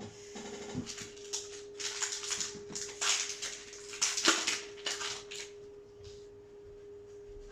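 Yu-Gi-Oh trading cards and booster-pack wrappers being handled and sorted, rustling in irregular bursts over the first five seconds or so, over a faint steady hum.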